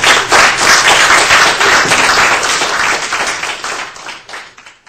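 Audience applauding, fading away over the last second or two.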